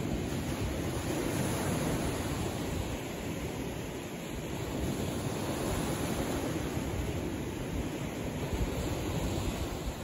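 Small waves of a calm Mediterranean sea washing in over shoreline rocks: a steady wash of surf that swells and eases gently, dipping slightly partway through.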